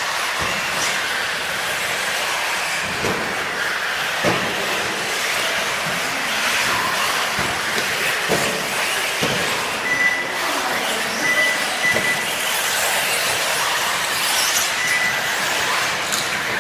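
Electric 1/8-scale off-road RC buggies running: a steady hiss of motors and tyres on dirt, with a few short knocks and a rising motor whine about two-thirds of the way through.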